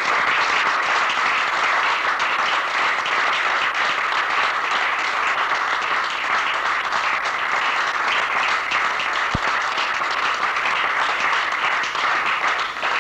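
A group of people applauding steadily, the clapping starting abruptly and tailing off near the end.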